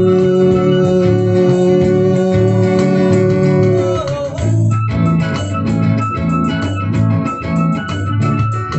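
Live rock band playing an instrumental passage: a keyboard's organ-sound chords held long over bass guitar and drums. The chord changes about four seconds in, with a high held note and steady cymbal strokes after it.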